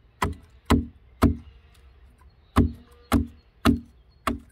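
Hatchet chopping into a green wooden stick, shaping its end into a flat spud for peeling bark: seven sharp chops about two a second, with a pause of about a second after the third.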